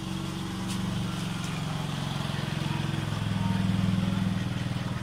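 A motor engine running with a steady low hum, swelling a little about three to four seconds in.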